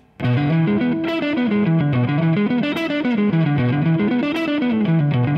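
Electric Telecaster guitar through a Kemper profiling amp, with a light drive. It plays a quick arpeggio run up and down the strings, the same short shape looped over and over: a small portion of a shred passage, practised in isolation. It starts about a quarter second in, after a brief pause.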